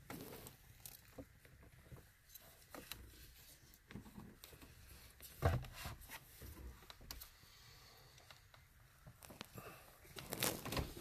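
Handling noises from work at a truck's steering wheel as the airbag and its wiring are dealt with: sparse clicks, scrapes and rustles of plastic parts, with a louder knock about halfway through and a quick run of clicks near the end.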